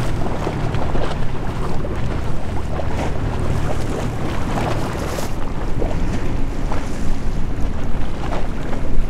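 Wind buffeting the microphone in uneven gusts over a steady low rumble.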